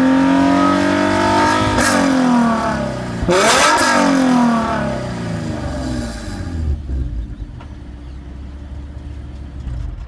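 Nissan 370Z's 3.7-litre V6 revved through a SACLAM exhaust silencer: held at high revs, falling away about two seconds in, blipped sharply once more a little after three seconds, then settling to a steady idle. The exhaust has a crackly edge that the owner puts down to the swapped catalytic converter and prototype front pipe.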